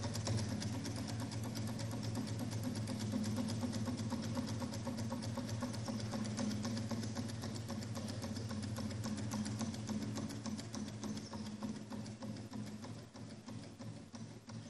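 Small homemade Stirling engine with a CD flywheel running, its moving parts making a fast, even mechanical clatter over a low hum. In the last few seconds it grows quieter and the clicks spread further apart as the engine slows.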